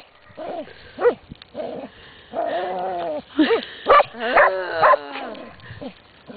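A dog whining and yelping excitedly in a run of short, high, pitch-bending calls.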